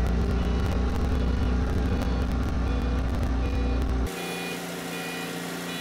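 Toyota forklift engine running steadily as it carries a heavy lathe on its forks, with a heavy low rumble that stops abruptly about four seconds in, where the sound becomes quieter.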